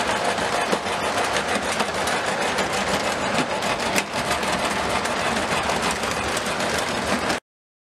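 Lionel O27 model train rolling on its three-rail track: a steady clatter of wheels and motor hum, cutting off abruptly near the end.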